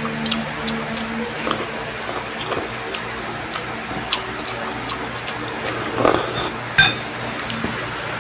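Close-miked eating sounds: wet mouth clicks, chewing and slurping of creamy noodle soup, with a spoon clinking on a ceramic bowl, the loudest clink about seven seconds in. A steady low hum runs underneath.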